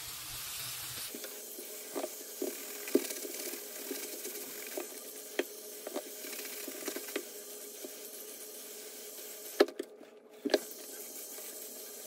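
Tap water running into a ceramic bathroom sink and splashing over a slipper sole being rinsed, with scattered light knocks and clicks from handling, two sharper knocks about ten seconds in.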